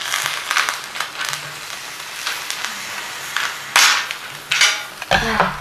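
Oil sizzling in a frying pan, with sharp crackles and pops and a heavier knock near the end.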